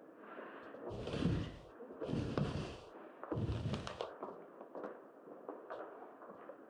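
Handling noise from a handheld microphone being carried: three rustling, thudding stretches of under a second each in the first four seconds, then a few faint clicks over a low hiss.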